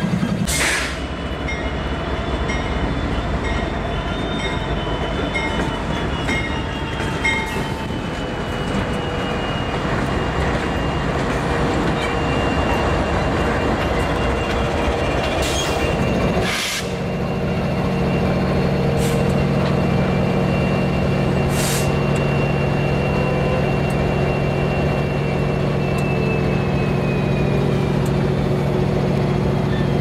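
EMD diesel locomotive rolling slowly, its engine running with a steady low drone while its wheels squeal against the rails in thin high tones that slowly drift in pitch. There are a few sharp clicks.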